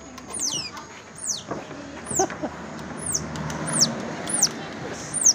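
Otter pup giving a string of about seven high-pitched chirps, each dropping sharply in pitch, roughly one every second: a begging call that its handler reads as the pup wanting to be picked up.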